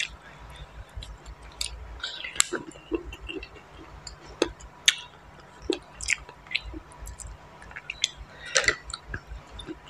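A person chewing close to the microphone, eating boiled snail meat picked from the shell, with irregular wet smacks and sharp mouth clicks.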